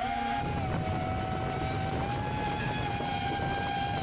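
FPV quadcopter's brushless motors and propellers whining at a nearly steady pitch, heard from on board. From about half a second in, the low rumble of wind on the microphone grows stronger.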